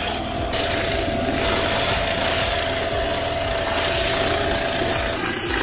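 Pressure-washing rig running steadily while a flat surface cleaner on a long pole jets water over slate roof tiles. A steady whine runs through the noise and drops out near the end.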